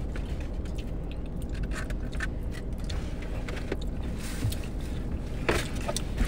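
Chewing and mouth sounds from eating, with small scattered clicks, over a steady low hum inside a parked car's cabin.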